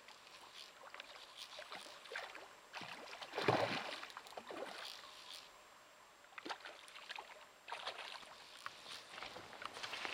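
Water splashing as a hooked rainbow trout is played close to the bank: irregular small splashes and crackles, with one louder splash about three and a half seconds in.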